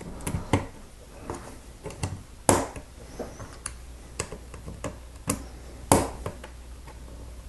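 Lego plastic pieces clicked and pressed onto bricks by hand: a series of irregular sharp clicks and taps, the two loudest about two and a half and six seconds in, dying away near the end.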